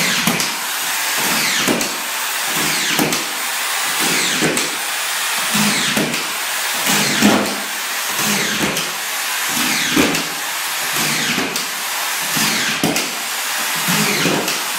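Corded auto-feed screw gun driving collated screws down through plywood into the subfloor. A steady motor whine drops in pitch each time a screw is driven, with a short knock as it seats, about one screw every second or so.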